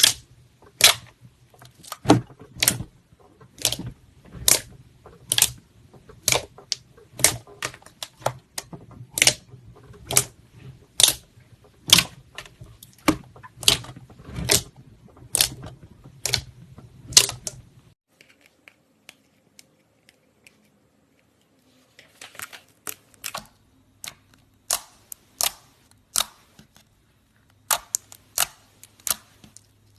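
Slime being pressed and squeezed, giving sharp popping clicks about one or two a second. They stop about 18 seconds in and start again a few seconds later.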